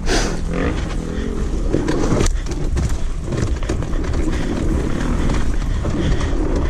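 Dirt bike running at low revs while rolling down a rutted trail on the brakes, with the chassis knocking and rattling over the bumps.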